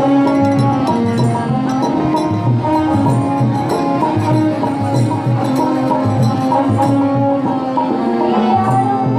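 Background music: melodic notes held over a steady, repeating low percussion beat.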